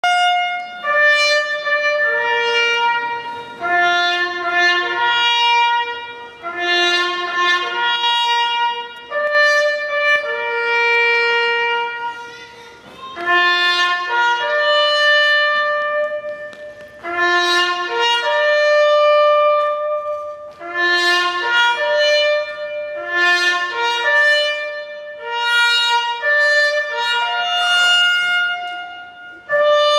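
Brass band music: a slow, stately melody of long held notes, phrase after phrase, with brief breaks between phrases.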